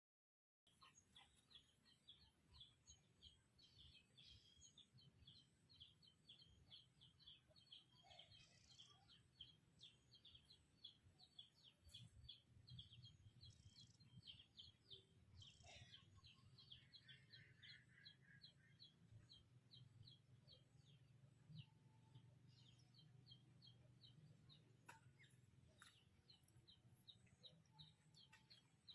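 Faint, rapid chirping from a small bird: short high chirps repeated about four times a second without a break, over a low steady hum.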